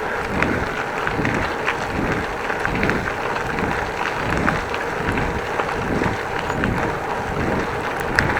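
Wind buffeting the microphone of a camera on a moving bicycle, over tyre and road noise, with a low pulse about every two-thirds of a second.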